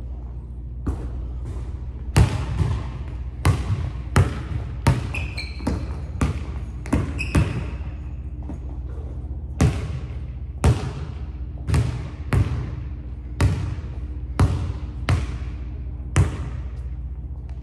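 Basketball dribbled on a hardwood gym floor: sharp single bounces, one or two a second, each ringing out in the big empty hall, with a pause of about two seconds past the middle. A few brief sneaker squeaks come just before that pause, over a steady low hum.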